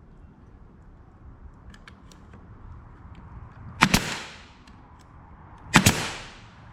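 Brad nailer firing twice, about two seconds apart, each shot a sharp double crack as it drives a brad nail into the wooden tabletop slats. Faint clicks of the wood being handled come before the shots.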